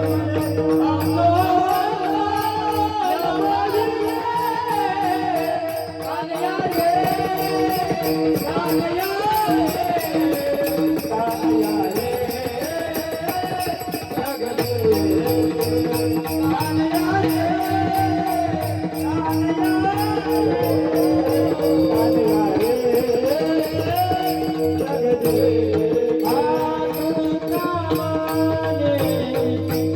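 A male voice singing a Marathi gavlan, a devotional folk song, in long flowing melodic lines. Underneath are a steady held drone and a fast regular beat of cymbals and drum.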